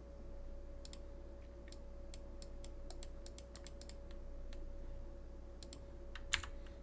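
Computer mouse buttons clicking repeatedly at an uneven pace, with one sharper, louder click a little over six seconds in. A steady electrical hum runs underneath.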